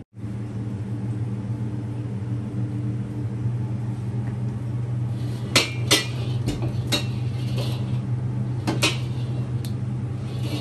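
Metal wok heating over a gas burner, with a steady low hum underneath; from about halfway in, a series of seven or eight sharp metallic clanks with a short ring as the wok is handled.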